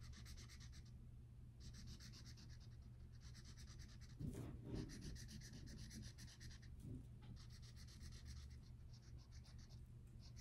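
Felt-tip marker colouring on paper: quick back-and-forth scribbling strokes in stretches of a second or two, with short pauses between them.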